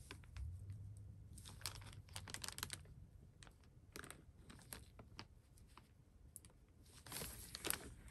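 Faint plastic clicking and rustling as hands work at the connector of a modular power-supply cable, squeezing and pulling to get its two halves apart. The clicks come in two spells, about two seconds in and again near the end.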